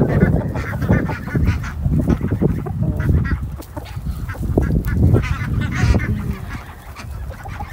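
A flock of ducks and chickens calling: ducks quacking and chickens clucking, short calls again and again, growing fainter near the end.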